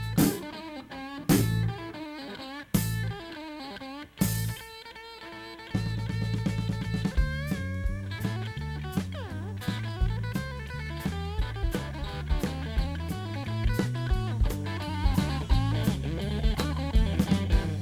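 Blues band playing an instrumental intro on electric guitar, bass and drum kit. It opens with a few sharp full-band hits about a second and a half apart, then settles into a steady groove about six seconds in, with guitar lines over it.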